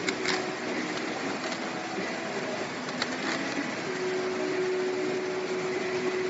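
Steady whirring drone of pouch-packing machinery running, with a few light clicks near the start and about three seconds in. A held hum comes through more clearly after about four seconds.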